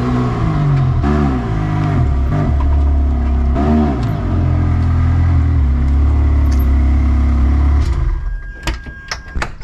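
Ferrari 360 Challenge Stradale's V8 engine running as the car rolls slowly at low revs, with a few short rising-and-falling throttle blips, then a steady low note that cuts off about eight seconds in. A few sharp clicks follow near the end.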